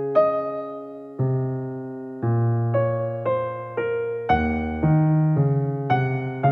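Gentle background piano music: slow single notes and chords struck about once or twice a second, each ringing and fading before the next.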